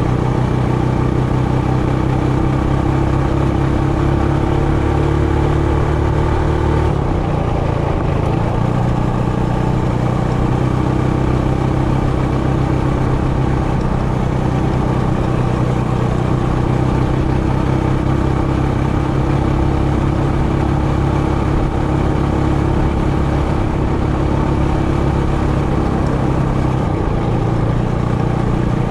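Trailmaster Hurricane 200X mini bike's single-cylinder engine running steadily while riding, its engine speed shifting about a quarter of the way in and again near the end.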